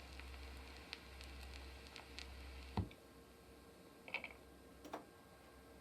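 Faint low equipment hum that cuts off with a switch-like thump about three seconds in, with a few light clicks and handling ticks around it.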